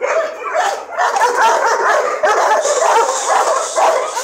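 Several dogs barking and yipping at once, the calls overlapping into a continuous din with no break.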